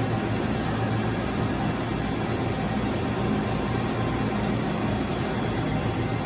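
Steady machinery hum with an even rushing noise, unbroken throughout: the running background of a machine shop.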